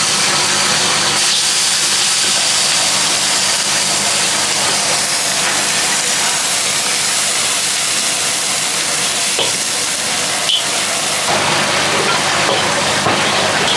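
Food sizzling and hissing in a hot wok as it is stir-fried, the metal ladle knocking against the wok a couple of times about nine and ten seconds in.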